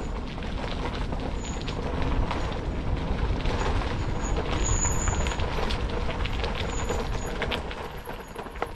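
Bicycle tyres rolling over a dirt and gravel path, with scattered rattles and small knocks from the bike and a heavy rumble of wind on the microphone. It quietens near the end.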